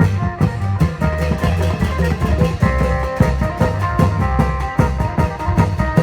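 Isan long-drum (klong yao) band playing procession music: drums keep a steady beat under a plucked-string melody.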